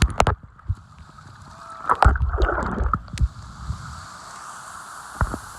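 Steady rush of flowing river water near the falls, with a few sharp knocks at the start and a louder low rumbling thump about two seconds in.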